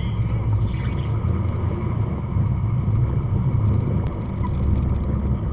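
Jet sprint boat's engine running with a steady low rumble.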